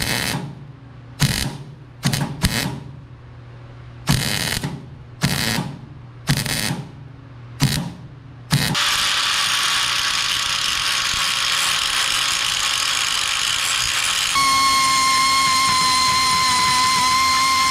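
About eight short bursts of MIG welding on the steel brake/clutch pedal bracket, filling in its pivot hole that heavy clutch use has worn oversize. Then a power tool runs steadily, and about fourteen seconds in a drill's steady whine joins as the welded hole is bored out.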